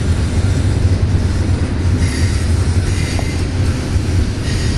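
Double-stack container train's cars rolling past on a curve: a steady low rumble of steel wheels on rail, with faint, thin wheel squeal coming in from about two seconds in.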